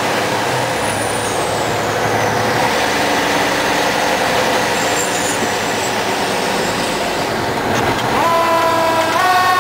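Fire engine's engine and road noise heard from inside the cab while driving. About eight seconds in, the siren winds up in pitch and holds a steady wail, stepping up once near the end.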